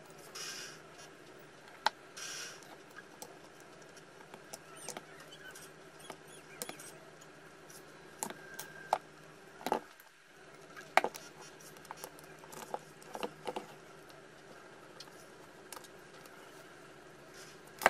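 Scattered small clicks, taps and scrapes of the plastic and metal parts of a Bosch 18V cordless drill being handled and fitted together by hand.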